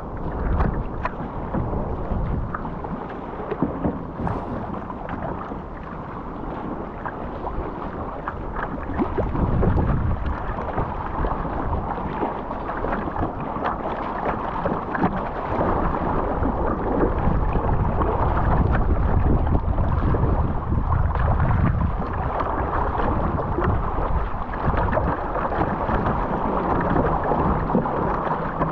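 Water rushing and splashing along the hull of a surfski under way in choppy sea, with paddle blades dipping and spray slapping close to the microphone, and a low rumble of wind on the microphone. It grows louder from about ten seconds in, as the spray picks up.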